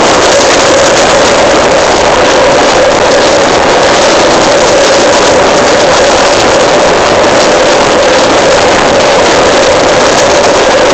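Electric commuter train unit 1024 running with a loud, steady roar, a constant hum held at one pitch over dense noise, without a break.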